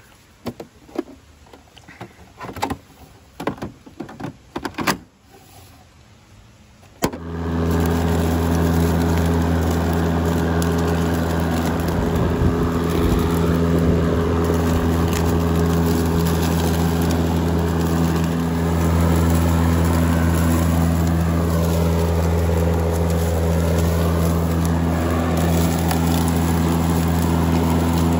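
Ryobi 40V HP brushless electric lawn mower: a few clicks and knocks from its controls, then about seven seconds in a click as the motor and blades start, followed by a loud, steady electric hum as it mows.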